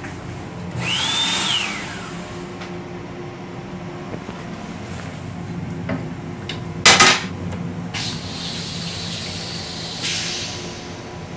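A black plastic toilet seat is lowered and drops onto the bowl with a sharp, loud clack about seven seconds in. Under it runs a steady low hum, with a short whoosh carrying a rising-then-falling whistle about a second in and a softer whoosh near the end.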